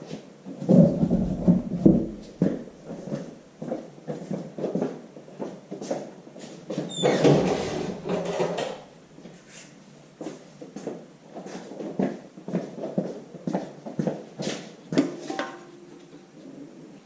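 Irregular metal clunks and knocks from handling and seating a new cylinder sleeve in a tractor engine block, with heavier bumps about a second in and again about seven seconds in.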